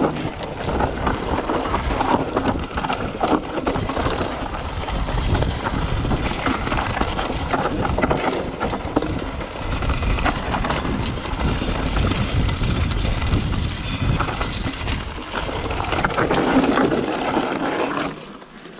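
Orange Stage 6 mountain bike descending a rough dirt trail: constant rumble of tyres over dirt and roots with rapid knocks and rattles of the chain and frame over the bumps. It goes quieter shortly before the end.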